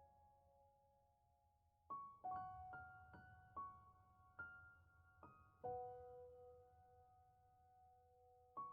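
Quiet solo piano background music: slow single notes that ring out and fade, the melody resuming about two seconds in after a held note dies away.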